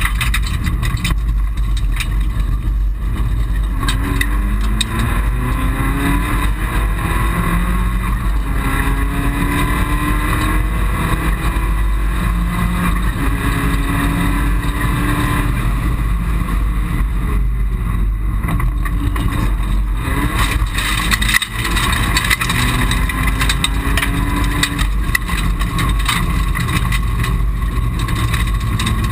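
Mitsubishi Colt rally car heard from inside the cabin under hard driving: the engine revs up again and again, dropping back at each gear change, over loud road and tyre noise. The sound dips briefly about two-thirds of the way through.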